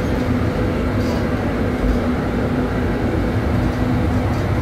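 Steady interior rumble of an articulated city bus, a low drone with a constant hum running under it.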